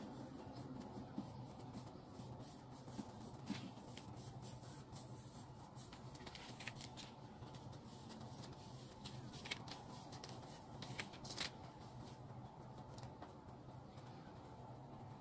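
Hands rolling cinnamon-sugar-covered bread dough into a log on a tablecloth: soft rustling and scattered light clicks and taps, clustered in the middle, over a low steady hum.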